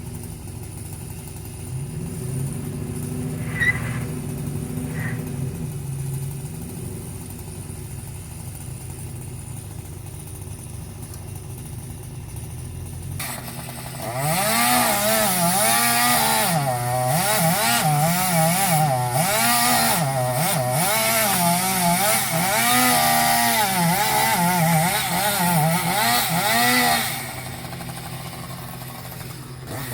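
Chainsaw engine, with a lower steady drone at first. About halfway in it starts cutting at full throttle, its pitch rising and falling over and over as the chain bogs and frees in the wood, then it stops near the end.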